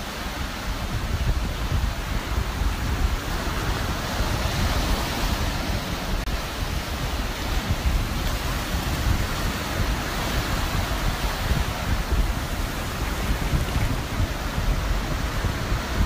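Surf breaking on the shore with wind buffeting the microphone: a steady rushing hiss over a low, gusty rumble.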